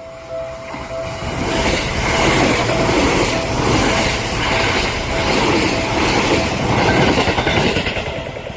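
Electric train passing close by, its wheels clattering over the rail joints; the noise builds over the first second or two, stays loud, and cuts off abruptly at the end.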